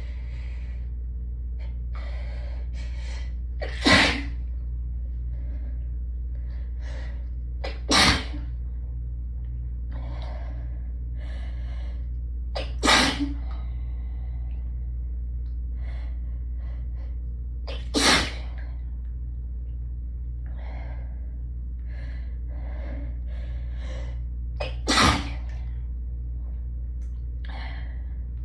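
A person's hay-fever sneezing fit: five loud sneezes a few seconds apart, with breathy gasping inhales and sniffs between them. A steady low hum runs underneath, from an air conditioner.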